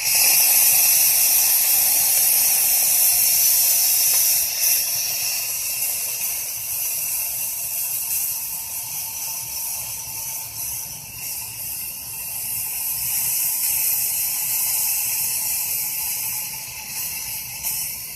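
Espresso machine's steam wand releasing steam: a loud, steady hiss that starts suddenly and keeps going, wavering slightly in strength.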